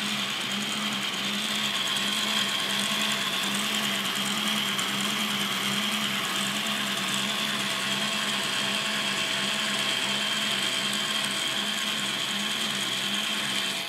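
K'nex electric motors running at full speed, driving the robot's plastic gear train, chains and differential: a steady mechanical whir with a high whine and a regular low throb.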